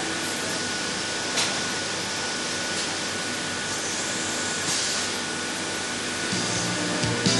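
Steady hissing noise with a faint constant high tone. A brush is scraped over an exhaust valve disc, with brief scrapes about a second and a half in and again past the middle. Low music fades in near the end.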